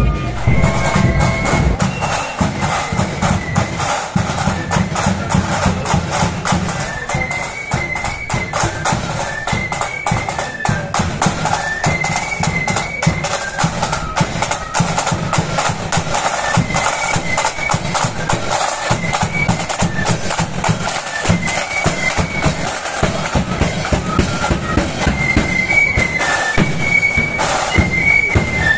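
Marching flute band playing a tune: a high flute melody in short, quick notes over a dense, steady beat of drums.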